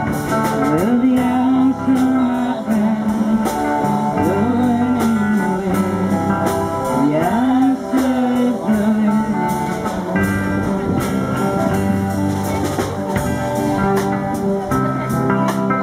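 Small live band playing a folk song: guitars strumming and a drum kit keeping time under a sung melody.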